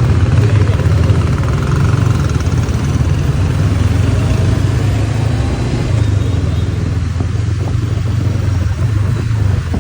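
Honda CB500X parallel-twin engine running steadily under way, with the mixed hum of surrounding city motorbike and car traffic.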